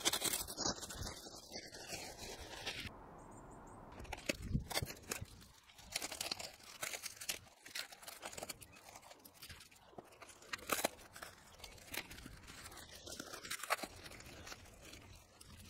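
Packaging being handled and pulled off during an unboxing: crinkling, crunching and tearing of wrap and cardboard, with scattered clicks and knocks and a brief lull about three seconds in.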